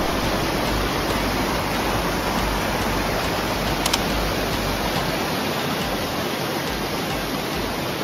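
Mountain stream rushing over boulders and small cascades: a steady, even rush of water.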